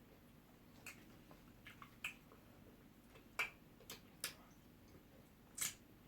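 Faint, scattered clicks and wet mouth smacks of people eating pounded yam with ogbono soup, about six in a few seconds at uneven intervals.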